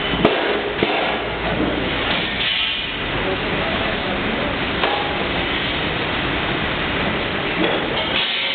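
Stainless steel twin-shell V blender running on a trial, a steady mechanical rumble from its drive as the shells turn, with a few short knocks.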